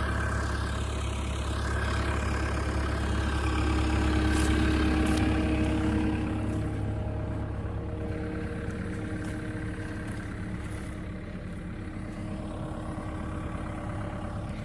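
Cat 305E2 CR mini excavator's diesel engine running steadily, a little louder about four to five seconds in and then quieter.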